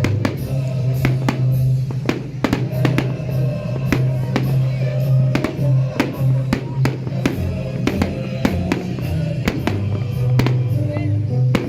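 Fireworks going off in frequent, irregular bangs over loud music with a heavy bass line.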